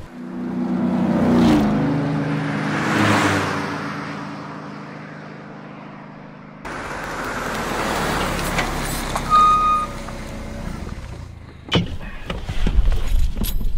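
A motor vehicle's engine passing, its hum dropping slightly in pitch while the noise swells and fades. About two-thirds of the way through it cuts off suddenly into a different hiss, with a cluster of knocks near the end.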